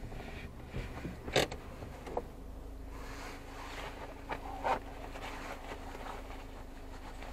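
Idling car heard from inside its cabin: a low, steady hum with a faint steady tone, broken by a few irregular clicks and creaks. The loudest click comes about a second and a half in, and two more come a little past halfway.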